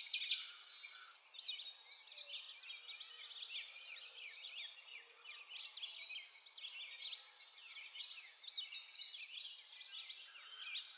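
A dense chorus of many small birds chirping and twittering at once, with quick high chirps overlapping one another.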